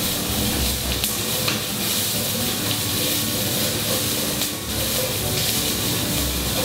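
Diced onion, chopped garlic and ginger sizzling steadily in hot oil in a wok over a high flame, stirred with a spatula that gives a few sharp scrapes and taps against the pan.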